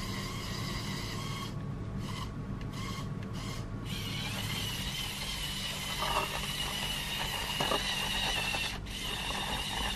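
Small electric motors and plastic gears of a Lego Technic Volvo L350F wheel loader running steadily, with a higher whine setting in about four seconds in as the loader drives forward through the snow.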